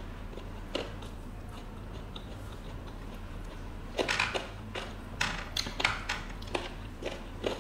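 Close-up eating sounds: a few soft chewing clicks, then about four seconds in a run of crisp crackles and clicks as fingers pick through and lift stir-fried kohlrabi strips coated in crunchy fried bits, with chewing.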